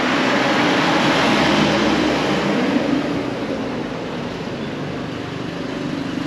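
A motor vehicle passing close by on the street. Its engine and tyre noise swell at the start and fade over the next few seconds.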